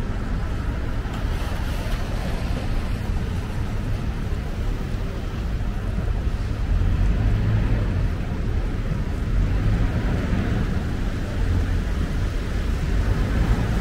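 City street ambience of passing traffic: a steady low rumble of engines and tyres that swells a little now and then.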